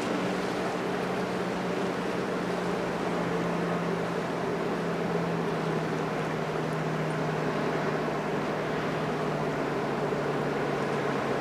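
A passing container ship's engines and machinery droning steadily, a low hum that slowly sinks in pitch, over a steady rushing noise.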